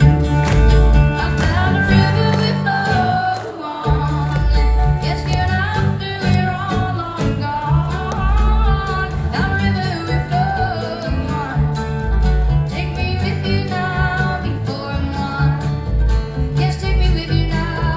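Live country music: a woman singing a slow, wavering melody over strummed acoustic guitar and a pulsing bass.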